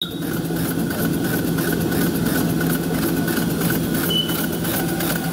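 A 5-inch gauge live-steam tank locomotive in steam, giving a steady hiss and rumble, with a short high tone about four seconds in.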